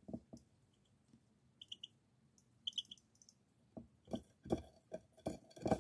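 A young bird close by: a few short high peeps in quick groups of three, then a run of irregular soft taps and knocks that comes faster and louder over the last two seconds.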